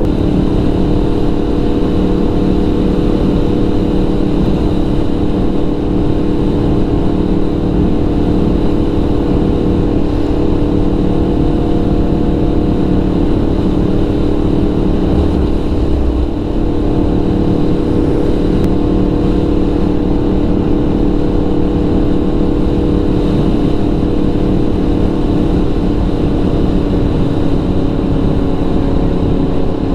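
Yamaha MT-series crossplane motorcycle engine running at a steady, nearly constant speed while cruising, heard through a helmet mic with wind noise.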